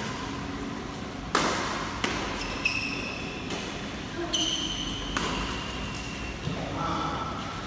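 Badminton rally: about five sharp racket-on-shuttlecock hits a second or less apart, with short high squeaks from shoes on the synthetic court mat.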